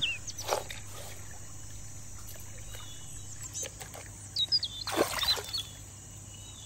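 Water sloshing and wet gravel scraping as a hand stirs a wooden gold pan, with the loudest splash about five seconds in. A bird chirps a few times just before it.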